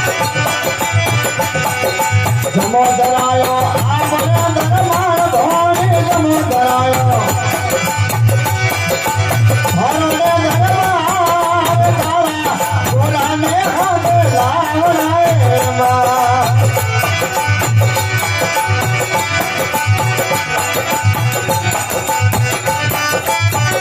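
Rajasthani folk bhajan music: a hand drum keeping a steady beat under a wavering melody line, which fades back after about sixteen seconds while the beat continues.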